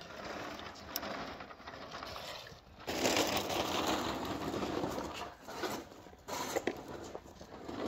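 Wood fire crackling and popping under a cast-iron pot, with a louder steady hiss from about three seconds in to about six seconds, then more sharp cracks.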